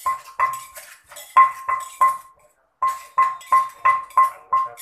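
Wooden pestle pounding in a clay mortar, about three strokes a second, each thud with a short ringing clink. The pounding pauses briefly about two seconds in, then picks up again.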